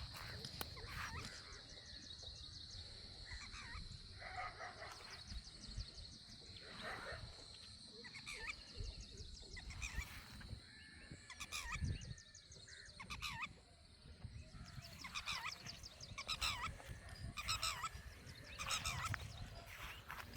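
Birds calling over and over in short, hoarse calls, coming thicker in the second half, over a steady high insect drone.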